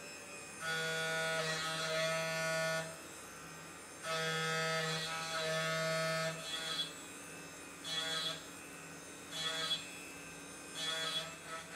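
CNC end mill on a Tormach 1100MX cutting round bar held in a 4th-axis collet chuck, under flood coolant, on an adaptive roughing toolpath. A steady pitched cutting tone comes in two passes of about two seconds each. Then come shorter bursts about every second and a half as the cutter enters and leaves the cut.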